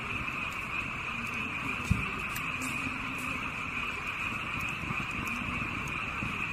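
Wood fire burning in a small grill, with faint scattered crackles, under a steady high-pitched chorus of night animals. A single dull thump about two seconds in.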